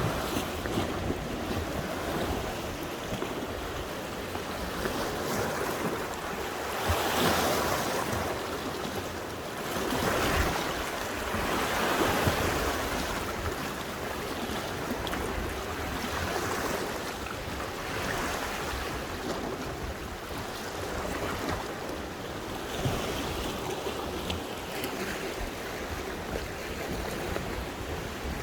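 Sea waves washing against the shore, surging louder every few seconds and falling back, with wind rumbling on the microphone.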